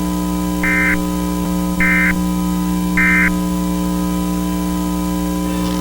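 Emergency Alert System end-of-message code: three short bursts of warbling digital data tones, about a second apart, over a steady loud electrical hum.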